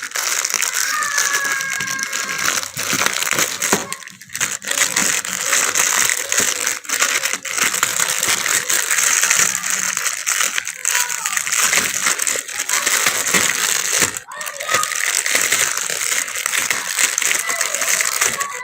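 Toy packaging crinkling and crackling continuously as it is torn and worked open by hand.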